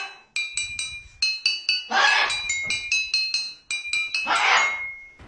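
Metal bars of a toy xylophone struck rapidly with a mallet by a cockatoo, giving several bright ringing notes a second. Two short harsh noisy bursts come in, about two seconds in and near the end.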